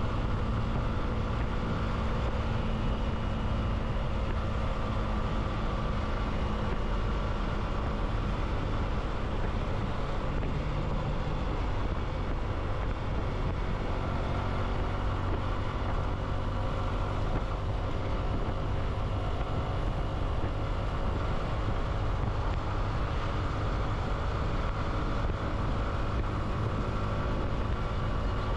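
Motorcycle engine running steadily while riding at a constant speed, with a heavy low wind rumble on the microphone.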